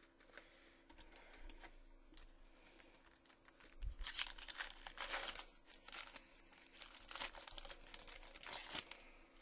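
Foil wrapper of a 2012 Upper Deck SP football card pack being torn open and crinkled by hand, faint at first, then loud and dense crackling from about halfway through.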